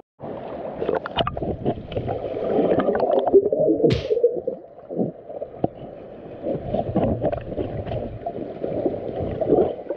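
Muffled underwater gurgling and bubbling through a submerged camera: a swimmer in mask and snorkel breathing out bubbles, and water churning, with a brief hiss about four seconds in.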